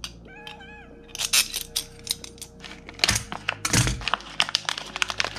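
Small plastic bag full of bolts being handled, crinkling and crackling in irregular sharp clicks, with the bolts clicking against each other inside.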